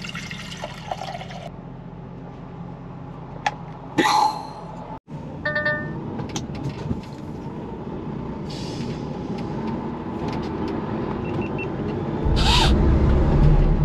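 Water poured from a plastic bottle into an electric travel kettle. Then a lorry's diesel engine running in a queue, with a short run of electronic beeps, turning louder near the end with a burst of hiss as the truck moves off.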